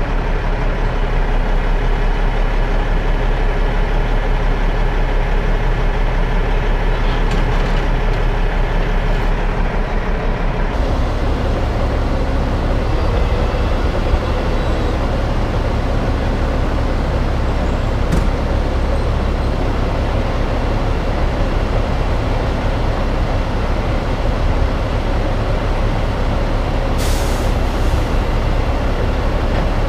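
Heavy truck diesel engines running steadily, with the engine sound changing abruptly about eleven seconds in. A short hiss of released air comes near the end.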